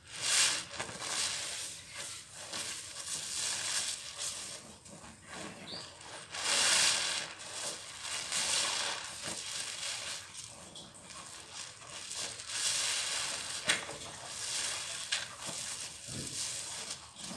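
Soap-soaked sponges squeezed and kneaded by hand in thick suds: wet squelching with the crackle and fizz of foam, in irregular squeezes, the loudest just after the start and again about six to seven seconds in.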